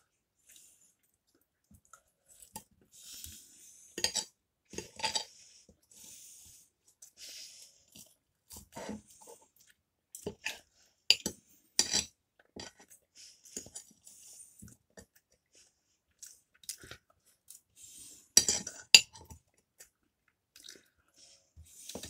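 A man chewing and crunching a mouthful of puff-pastry pork roll, with irregular clinks and scrapes of a knife and fork cutting on a plate. The loudest clinks come around the middle and near the end.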